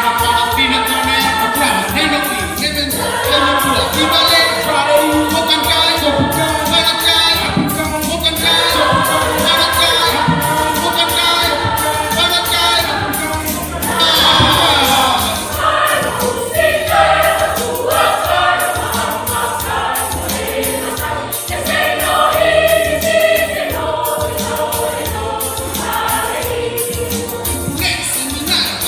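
Church choir singing, with a steady beat underneath.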